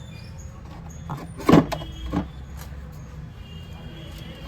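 A few sharp knocks and clatters, the loudest about one and a half seconds in, over a steady low hum.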